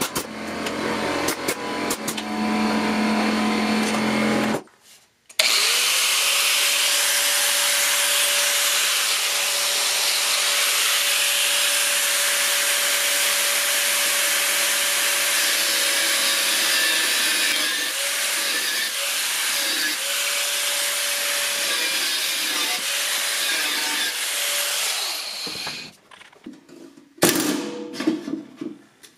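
A pneumatic air chisel hammers for a few seconds at the steel ammo can. Then an angle grinder with a cut-off wheel runs for about twenty seconds, cutting through the can's sheet-steel lid, its whine dipping several times as it bites under load. Near the end come a few sharp hits from the air chisel.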